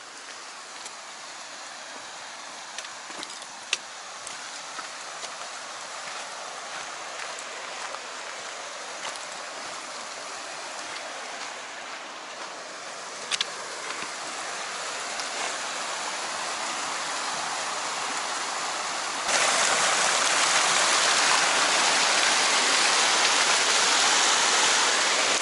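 Creek water rushing over rocks: a steady hiss that grows gradually louder, then jumps suddenly louder near the end. A few sharp clicks of steps on stone are heard along the way.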